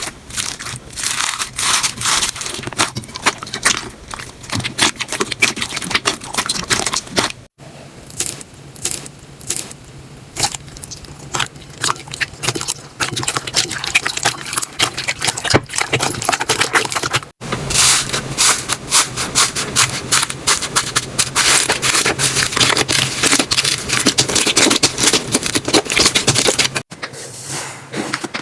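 Slime being squeezed, poked and stretched by hand, giving dense crackling and popping clicks with some sticky scraping. The sound breaks off abruptly three times as one clip cuts to the next.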